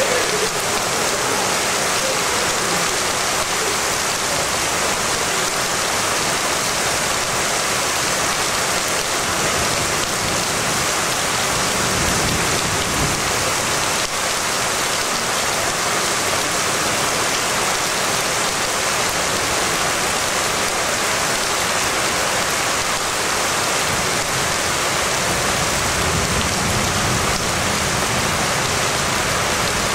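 Rain pouring steadily during a thunderstorm, a constant even hiss with no pauses.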